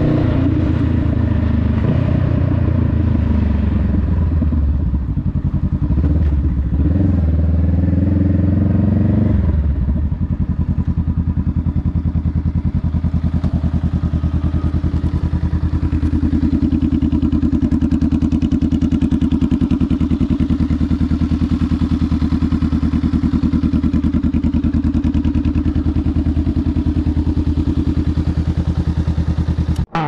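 Honda Rebel 500 parallel-twin engine through a TBR Comp S slip-on silencer, revs falling as the bike slows, with a short rise and fall in revs about six to nine seconds in. It then settles to a steady idle for the last twenty seconds.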